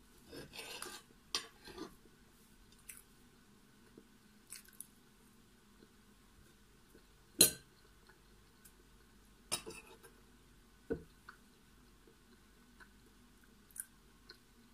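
Knife and fork clinking and scraping against a glass plate while cutting French toast. There is a flurry of scraping in the first couple of seconds, then a few single sharp clinks several seconds apart.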